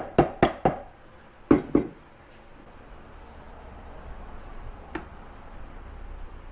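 Glued pecan-wood plugs being tapped into screw holes: a quick run of four sharp taps, two more about a second and a half in, then a single tap near the end.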